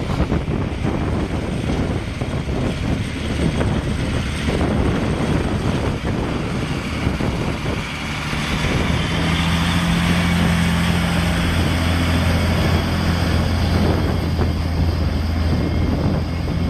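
Diesel engine of a Volvo BM articulated dump truck running as the truck drives by. A rough, noisy rumble at first; from about eight seconds in it settles into a steady low drone that grows louder as the truck comes close.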